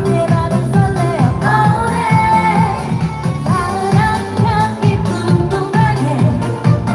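Korean trot song sung live by a female singer over a backing track with a steady beat.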